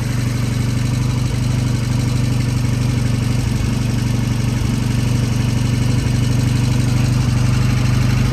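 Royal Enfield Interstate's 736 cc parallel-twin engine idling steadily, the idle set a little high.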